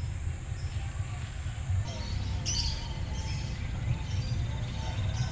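Birds chirping, with a cluster of short high chirps about two and a half seconds in, over a steady low rumble.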